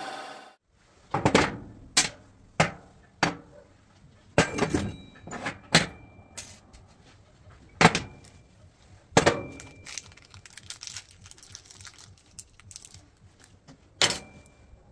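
Metal machine parts, including cast pillow-block bearings and an aluminium wheel, set down one by one on a metal workbench: about a dozen separate knocks and clinks, several with a short metallic ring.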